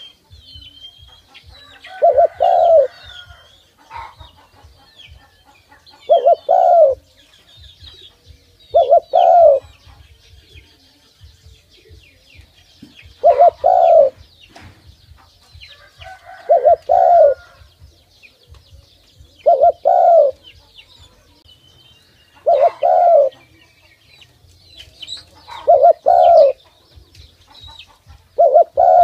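Spotted dove giving its bow-coo call: a low, two-part coo repeated about every three seconds, nine times. Faint high chirps of small birds sound in between.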